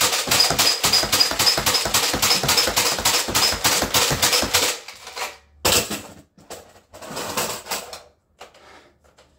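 Nerf Alpha Trooper pump-action foam dart blaster slam-fired rapidly, about five pump-and-shot strokes a second for nearly five seconds, many strokes carrying a high squeak from the epoxy on the plunger tube. After a short pause there is one sharp clack, then lighter plastic clicks of the blaster being handled.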